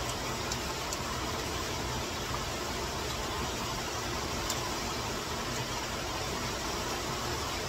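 Steady rushing noise of heavy rain and a swollen stream in flood, with a few faint clicks.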